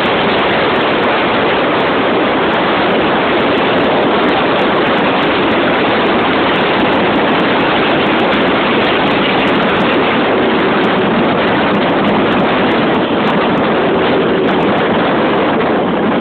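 Steady, loud rushing noise of a vehicle in motion, with wind on the microphone.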